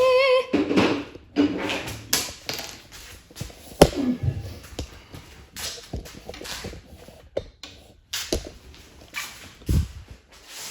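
Scattered clicks, taps and rustling from bicycle parts being handled and fitted while working on the brakes, opening with a brief wavering hum from a person.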